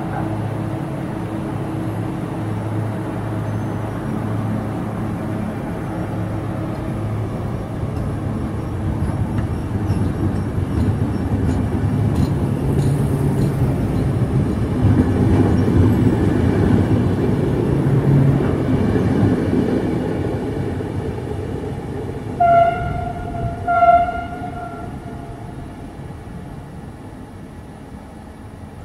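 Trenitalia regional passenger train pulling out and running past, its rumble swelling and then fading as it moves away. Past the middle, a train horn gives two short toots about a second and a half apart.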